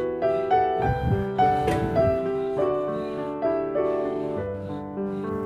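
Background piano music, a gentle melody of single notes, with a short burst of noise between one and two seconds in.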